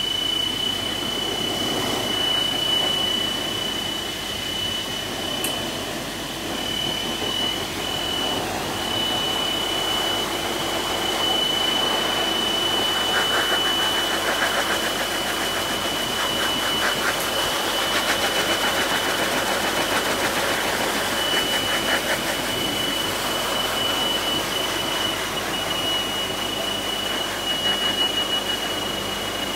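High-velocity pet force dryer running steadily: a rush of air with a constant high whine. The air noise gets louder and rougher about halfway through.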